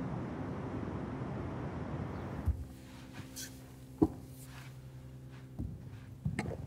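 A steady rushing noise for about two and a half seconds, then a quiet room hum broken by a few knocks and thumps, the sharpest and loudest about four seconds in.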